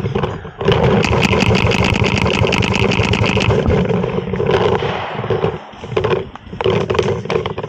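Paintball marker firing rapidly over a steady hum: one long string of shots, then two shorter bursts near the end.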